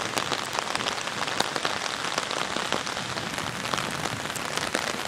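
Steady rain, with many single drops tapping sharply on the umbrella overhead.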